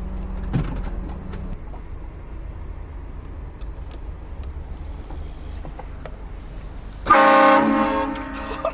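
A train horn blasts once, several tones sounding together as a chord, near the end. The blast is loudest for about half a second, then tails off over about another second. Before it there is only a low, steady rumble.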